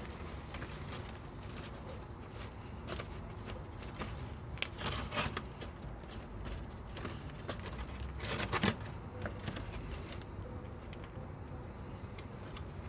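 A knife cutting along the bones of a rack of smoked ribs on aluminium foil. The foil crinkles, with a few sharp scrapes and crackles a little under five seconds in and again about eight and a half seconds in, over a low steady rumble.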